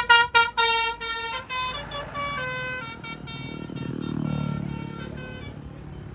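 Telolet basuri multi-tone musical horn on a bus playing a stepped tune: rapid short toots at first, then longer held notes that fade out after about five seconds. A low rumble swells under it about four seconds in.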